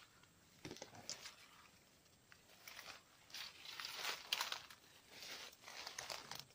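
Faint, irregular rustling and crackling, sparse at first and busier from about two seconds in.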